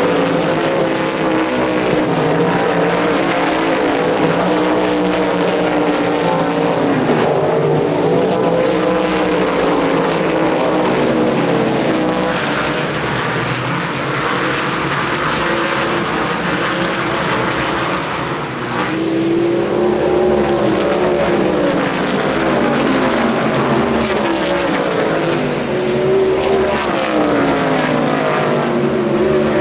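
Several race car engines running laps on a short oval, their pitch rising and falling as the cars accelerate and pass.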